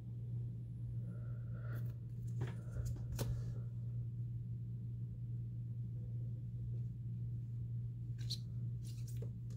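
Hands handling trading cards in hard plastic holders: a few faint clicks and rustles spread through the stretch, over a steady low hum.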